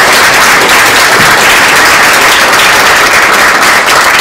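A small audience applauding, loud and steady.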